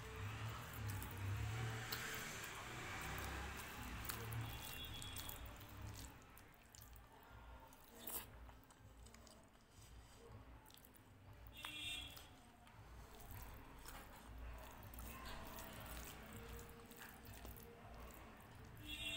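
Close-up eating sounds of rice and dal being eaten by hand: fingers squishing and mixing the soft rice and dal on the plate, with chewing and wet mouth clicks. A few brief high-pitched squeaks stand out, about four seconds in, near twelve seconds and at the very end.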